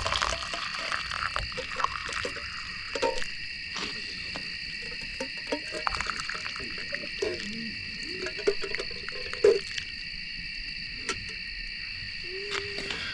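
Steady chorus of crickets or other insects in the forest, a continuous high-pitched trilling, with scattered small clicks and knocks and a short low tone near the end.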